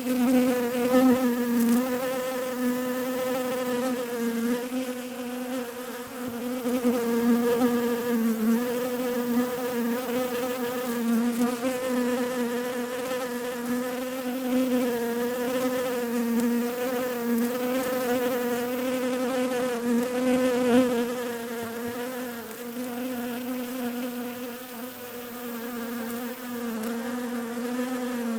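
Bees buzzing continuously, a steady hum around one wavering pitch that swells and eases in loudness.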